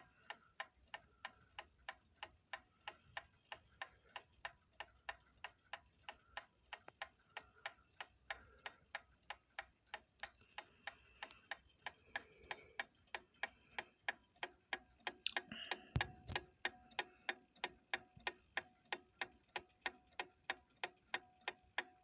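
Ingraham Wizard mantel clock movement running, its non-original verge escapement, shimmed with a washer, ticking in a quick, even beat. It is working as it should. There is a low bump about two-thirds of the way through.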